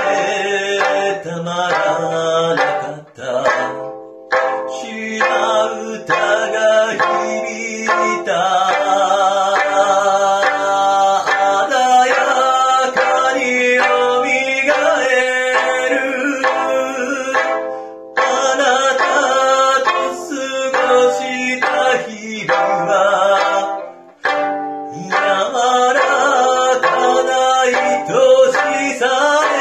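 Sanshin, the Okinawan three-stringed snakeskin lute, plucked in chords as accompaniment, over a song with a sung or held melodic line.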